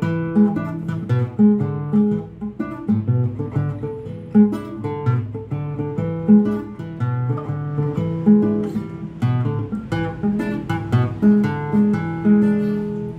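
Nylon-string classical guitar played fingerstyle: a repeating plucked bass line under chord tones, the song's E7 riff.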